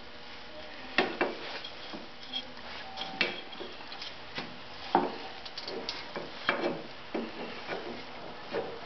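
Rubber V-belt being worked by hand onto a pulley of a Wheel Horse ST4201 snowthrower: irregular knocks and clicks of belt and metal parts against the steel frame, with rubbing in between, about half a dozen sharper knocks.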